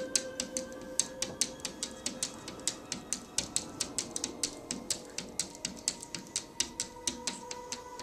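Domestic cat chattering at birds outside a window: rapid, irregular clicks, about six a second, the excited jaw-chatter of a cat watching prey it cannot reach.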